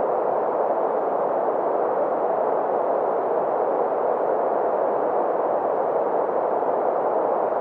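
Green noise: a steady, unchanging synthetic hiss centred on the middle frequencies, with little deep bass or high treble.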